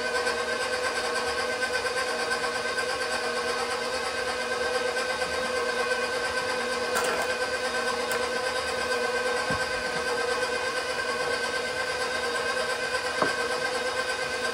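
KitchenAid bowl-lift stand mixer running steadily with its flat beater, blending the dry bread ingredients in a stainless steel bowl: an even motor whine. A few light clicks stand out, about halfway through and near the end.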